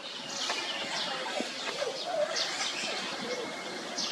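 Birds chirping with many short, high calls, mixed with a few lower, short cooing calls.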